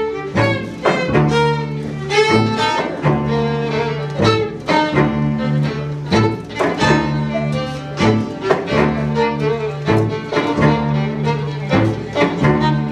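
Violin, viola, cello and double bass playing together live: a lively rhythmic tune with frequent sharp bowed accents over held low notes.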